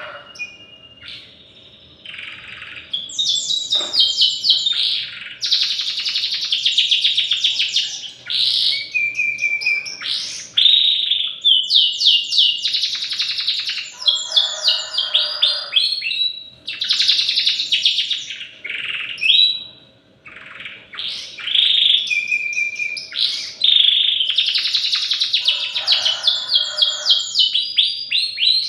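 Young canary, about three months old, practising its song: a long rambling run of fast trills, chirps and warbled phrases with only short pauses, the unpolished practice song of a juvenile bird still learning to sing.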